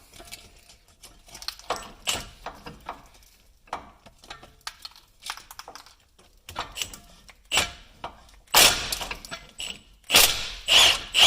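Impact wrench running on the axle-to-transmission bolts in three short loud bursts near the end, after a run of small metallic clicks and clinks of the socket and bolts.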